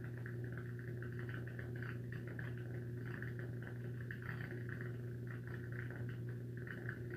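A steady low hum with fainter overtones, and a fluttering higher tone above it.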